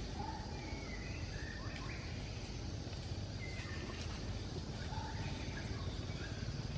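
Outdoor forest ambience: a steady low rumble with a few short, faint bird chirps and whistles scattered through it.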